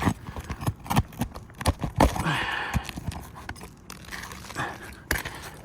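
Irregular sharp knocks and clicks with a brief scrape, as a roofing snake is worked under asphalt shingles to pull their nails.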